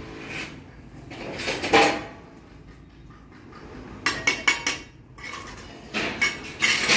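Steel brick trowel scraping and clinking against mortar and clay bricks while a wall is laid: a long scrape a little under two seconds in, a quick run of sharp taps about four seconds in, and more scraping near the end.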